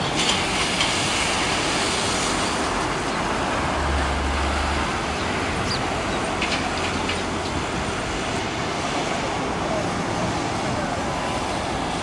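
Steady mechanical rumble of distant machinery and traffic, with a brief low hum about four seconds in and a few faint clicks a couple of seconds later.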